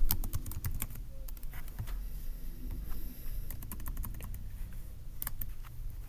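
Computer keyboard typing in short runs of keystrokes with pauses between, heaviest in the first second.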